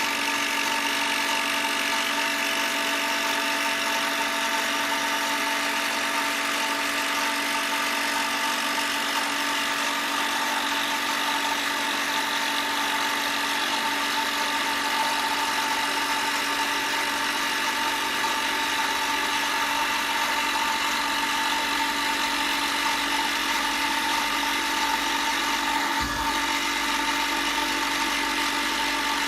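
Woodworking power tool running steadily, a constant motor whine with several steady tones, with one brief knock near the end.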